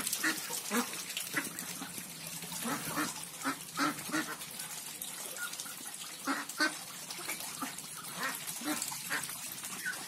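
A flock of domestic ducks quacking in short, scattered calls that come one after another through the whole stretch.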